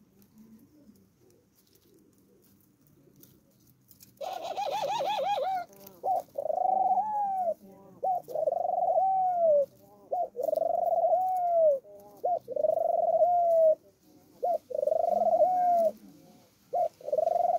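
Collared dove cooing repeatedly. After about four seconds of quiet, a rolling call starts the series, followed by a steady run of long arched coos, each about a second and a half, with short notes between them.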